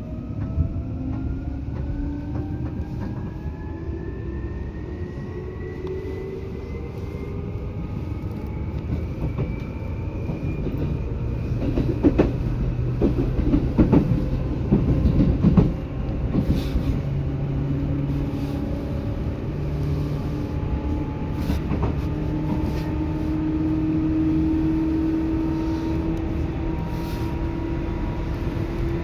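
Seibu 2000 series electric train running. Its motor whine rises in pitch over the first ten seconds or so as the train gathers speed. A patch of clattering wheel knocks over rail joints or points follows in the middle, then it runs on at a steadier pitch.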